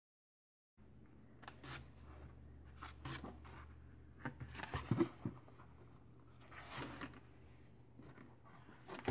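Pages of a children's activity book being turned by hand: short paper rustles and flicks every second or so over a low steady hum, after a brief dead silence at the start.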